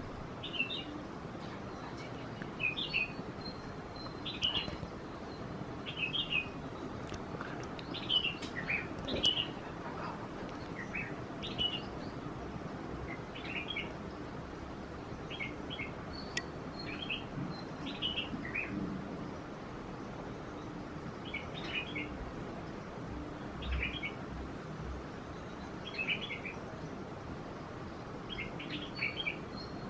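Birds chirping: short clusters of high chirps repeating every second or two, over a faint steady background noise.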